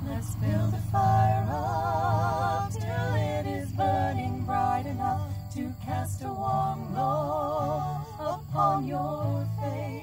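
Women singing with vibrato to two strummed acoustic guitars in a live acoustic performance.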